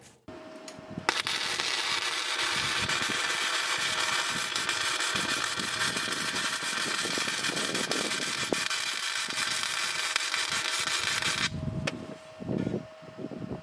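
Electric arc welding on heavy steel with a Titanium 170 welder: a steady, dense crackle of the arc for about ten seconds as a stitch weld is laid, starting about a second in and cutting off sharply. A faint steady hum shows on either side of the arc, and a few low knocks come near the end.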